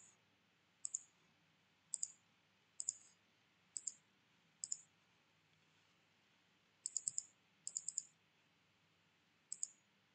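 Computer mouse buttons clicking: short, sharp click pairs about once a second, a quicker run of clicks about seven seconds in, and one more pair near the end.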